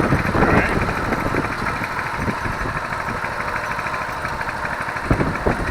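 Coleman CT200U-EX minibike's 196 cc single-cylinder four-stroke engine running at a steady idle just after its first start, louder near the end.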